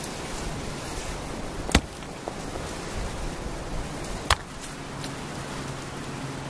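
Shallow water trickling over stones and wet leaf litter, a steady hiss, broken by two sharp clicks about two and four seconds in.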